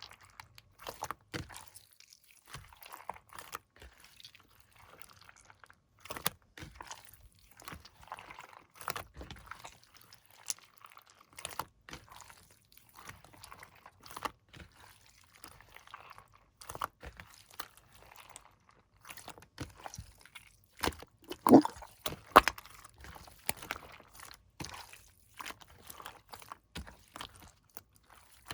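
Jelly slime being squished, folded and pressed by hand, making irregular wet clicks and crackles, with the loudest pop about two-thirds of the way through.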